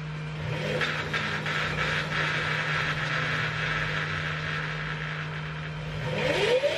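Electric motorcycle drive motor spinning the raised rear wheel, over a steady low hum. There is a brief whir about half a second in and a rushing hiss for a few seconds. Near the end a whine climbs steeply in pitch as the motor accelerates the wheel.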